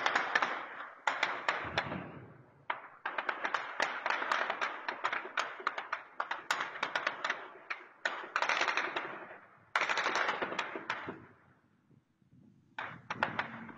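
Automatic gunfire in several long, rapid bursts with short breaks between them, dying away briefly about twelve seconds in before another burst starts.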